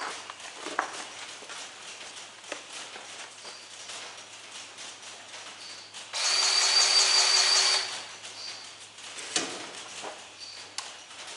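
Battery-powered grease gun motor running for about a second and a half with a steady whine, pumping grease into a fitting. Light scattered clicks and knocks come before and after it.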